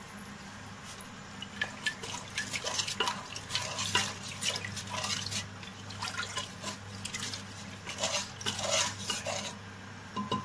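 Wooden spatula stirring moong dal and water in a pressure cooker. Irregular sloshing, with clicks and scrapes against the pot, starts about a second and a half in and stops near the end. A steady low hum runs under it.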